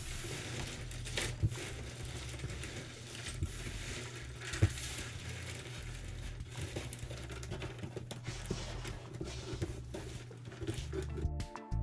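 Cardboard jigsaw puzzle pieces being spread and sifted by hand across a tabletop: a continuous rustle and patter of pieces with a few sharper clicks. Background music comes in near the end.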